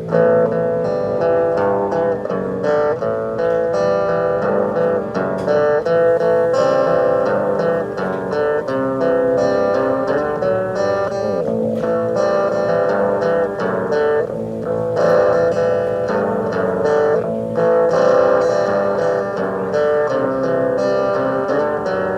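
Guitar-led music played back through the Sony ICF-CS650 Dream Machine clock radio's speaker, with little treble above the middle range.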